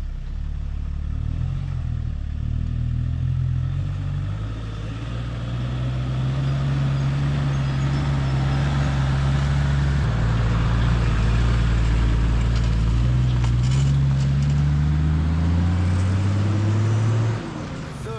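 Toyota LandCruiser Troop Carrier's engine pulling away, its pitch climbing slowly through each gear and dropping at gear changes about halfway through and near the end.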